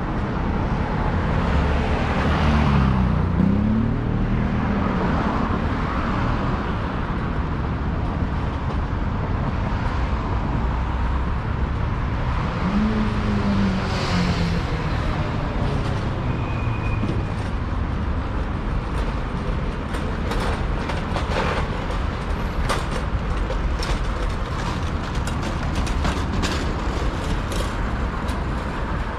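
Steady city road traffic: cars and buses passing, with an engine's pitch sweeping up and down twice. A run of sharp clicks comes in over the second half.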